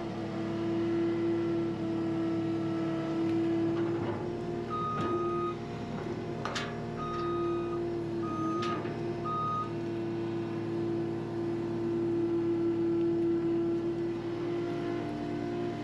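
Cat skid steer's diesel engine running steadily, heard from inside the cab. About five seconds in, a handful of short high alarm beeps sound over it, and two sharp metal clanks come near the middle.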